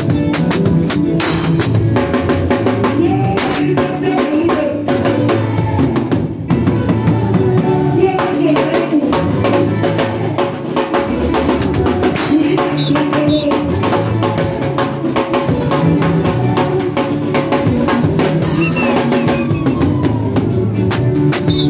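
Acoustic drum kit played live: a busy run of strikes on toms, snare, bass drum and cymbals, with a keyboard playing along under the drums.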